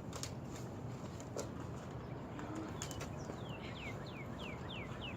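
A songbird singing a quick run of about six short falling whistled notes, roughly three a second, starting partway through, over faint steady outdoor background noise.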